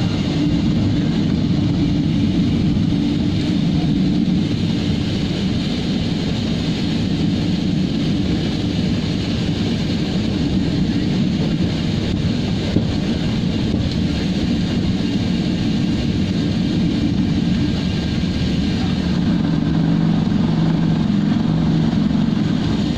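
Harbin Y-12's twin turboprop engines and propellers running, a loud steady drone heard inside the cockpit. Its low hum shifts slightly in pitch near the end.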